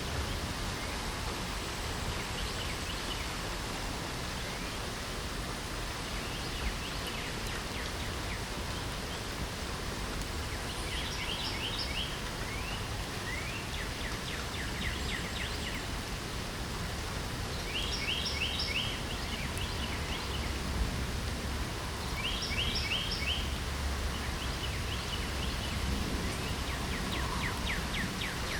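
Steady light rain, with a songbird singing a short, quick run of high notes, repeated every few seconds.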